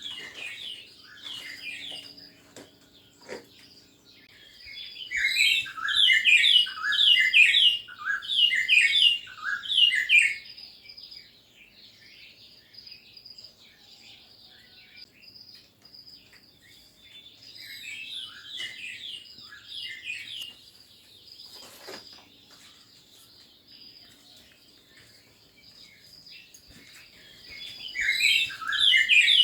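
Small garden birds chirping and twittering in quick bursts of short notes. There are three loud spells, about five seconds in, around the eighteen-second mark and again near the end, with quieter chirping between them.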